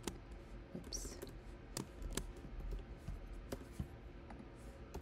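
Sparse keystrokes on a computer keyboard: about seven separate clicks with pauses between them.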